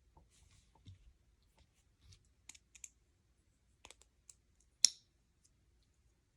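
Small plastic Lego pieces clicking and tapping as they are handled, scattered light clicks with one sharper click about five seconds in.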